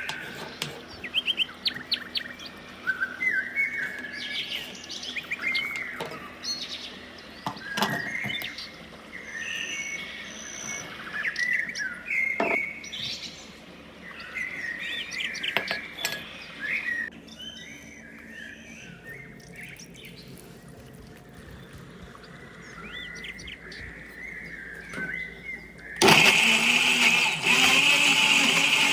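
Small birds chirping and twittering, with a few sharp knocks in between. Near the end an electric blender switches on and runs loudly and steadily.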